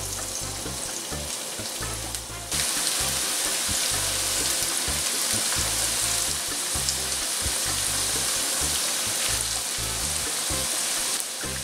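Rolled corn-tortilla taquitos frying in a skillet of hot oil: steady sizzling, which turns suddenly louder about two and a half seconds in.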